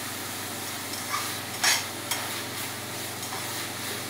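Chopped onion with garlic and ginger paste sizzling in hot oil in a stainless steel pan, being stir-fried with a spatula. A few sharper scrapes of the spatula against the pan come between about one and two seconds in.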